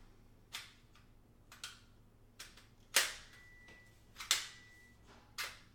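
Metal frame pieces and brackets of a GPU mining-rig kit clacking together as they are handled and set in place: about six sharp separate knocks, the loudest about three seconds in, followed by a faint high ringing tone.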